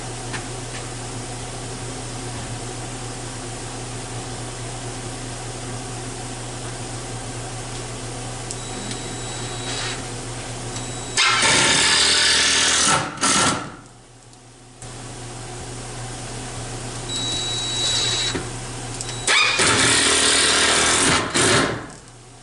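Shop machinery humming steadily, most likely the CNC mill after a cutting job. Twice, about 11 seconds in and again near the end, a loud rushing noise of about two seconds covers the hum.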